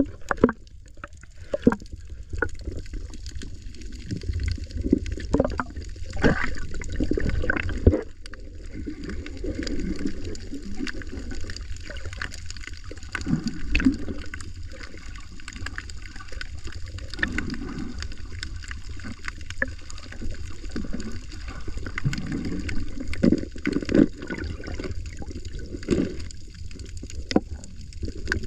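Muffled water sound heard through a camera held underwater: water swirling and gurgling past the housing, with low swells every few seconds and scattered sharp clicks.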